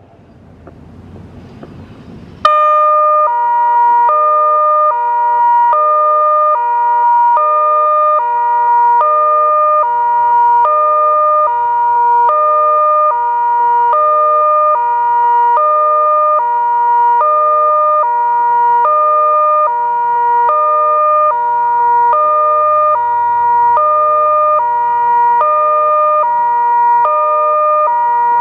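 SirCom SiBT-2400 high-powered speaker-array siren sounding its hi-lo alert tone, switching steadily back and forth between a high and a low pitch. The tone comes on suddenly about two and a half seconds in, after a faint hiss.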